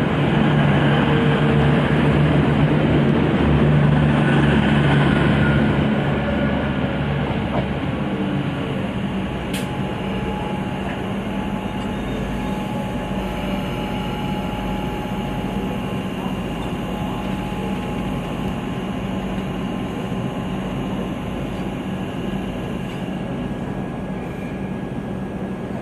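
V/Line push-pull train carriages rolling past on the rails with a steady low drone, loudest for the first few seconds and then easing off into a softer rumble. Later a thin steady electrical hum sits over it, with one sharp click about ten seconds in.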